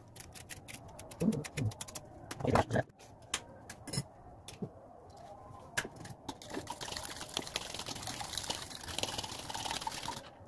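Light knocks and clicks of kitchen utensils and plastic bowls being handled on a counter, then a soft steady hiss through the last few seconds.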